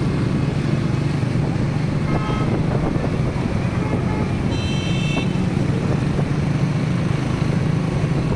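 Steady engine drone and road noise from a vehicle driving through city traffic. A short horn toot sounds about five seconds in.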